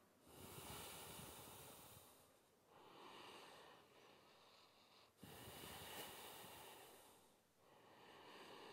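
Faint, slow, deep breathing through the nose, each breath in or out lasting about two seconds, making roughly two full breaths.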